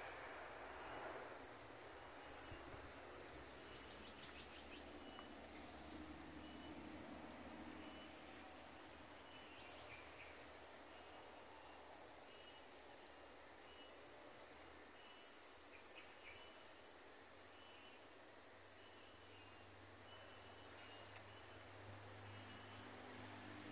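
Insects buzzing in a steady high-pitched drone, with short chirps repeating about once a second.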